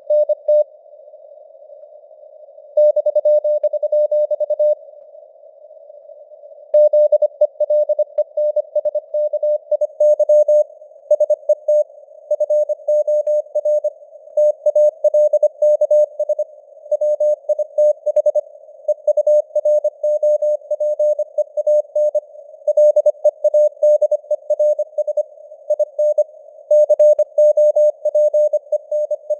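Morse code (CW) sent at 25 words per minute as a keyed tone of about 600 Hz, short dots and longer dashes, over simulated radio noise. There are two longer pauses in the first seven seconds, then steady keying.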